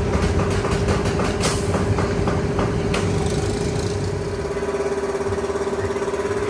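A steady machine hum, a constant pitched drone like a running motor, with scattered clicks and knocks in the first half.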